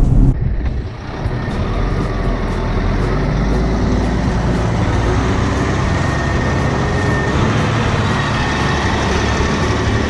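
Diesel engine of a parked semi tanker truck running steadily.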